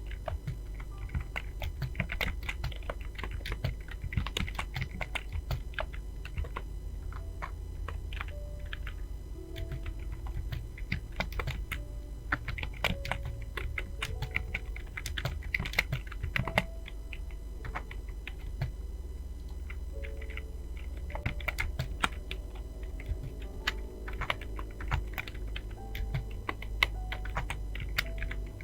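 Rapid, irregular keystrokes on a Fantech computer keyboard during a typing test, a dense stream of key clicks with a few louder strikes.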